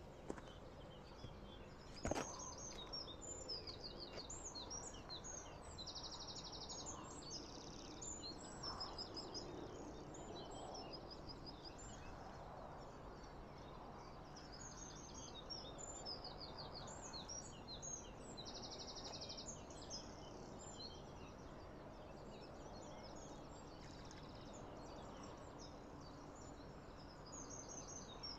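Several songbirds singing, with many overlapping chirps, whistles and fast trills over a quiet outdoor background. A single sharp click comes about two seconds in.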